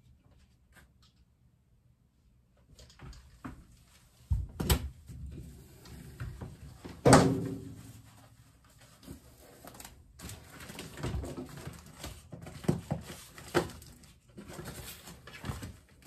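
Scattered knocks, bumps and rustling as a clothes dryer is handled behind the machine and its power cord is unplugged. The loudest is a single thump about seven seconds in.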